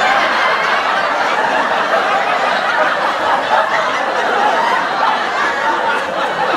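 Sitcom laugh track: a studio audience laughing and chuckling together, steady and continuous.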